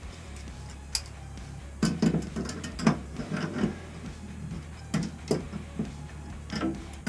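Scattered sharp metallic clicks and knocks, about six in a few seconds, from tools working on the gas-line fittings at the water heater's gas valve; the leaking joint is being tightened and checked.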